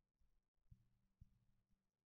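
Faint, low thumps about twice a second with a low hum under them, the 'drumming or heartbeat' sounds of unknown origin.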